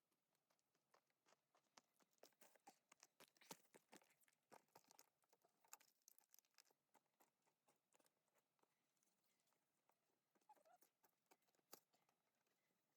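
Near silence with faint, irregular small clicks and taps, most of them in the first half.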